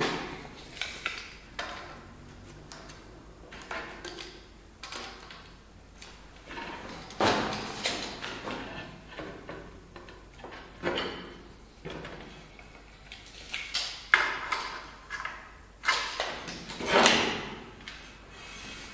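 Irregular knocks and clunks of hard objects being handled and set down, some with a brief scraping or ringing tail. The loudest come about seven, fourteen and seventeen seconds in.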